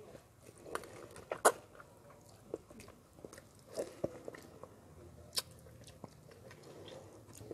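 Person eating a ripe mango, biting and chewing the fibrous flesh off the seed, with scattered sharp mouth clicks. The loudest click comes about one and a half seconds in.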